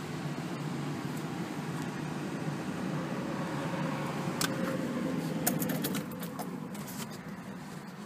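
Car running at idle, heard from inside the cabin, a steady low hum that eases off near the end. A few sharp clicks and knocks come about halfway through.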